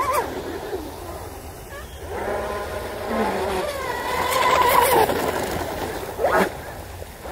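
Electric RC hydroplane's brushless motor (Oxidean 4082, 2200 kV) whining at speed as the boat runs across the water. The pitch wavers and dips about five seconds in, then rises and falls quickly once a little past six seconds.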